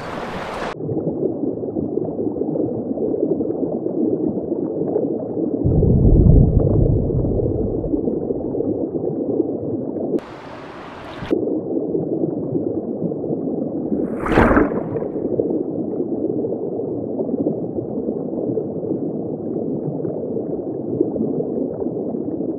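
The River Soča's current heard through a camera held underwater: a steady, muffled rushing gurgle with the high end cut off, and a deeper rumble for a couple of seconds about six seconds in. About ten seconds in, the open, bright rush of the river comes through for about a second, and a few seconds later there is a single sharp knock.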